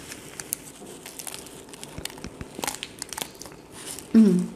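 A person biting into and chewing a crumbly baked empada pastry held in its cup liner: scattered small crackles and crinkles of crust and liner. A short hummed "mm" about four seconds in.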